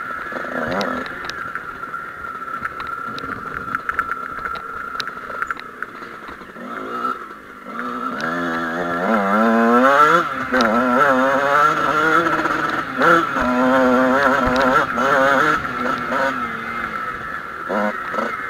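Two-stroke Kawasaki KX motocross bike engine running, lower for the first part, then accelerating hard about eight seconds in, its pitch rising and falling again and again as the throttle is worked.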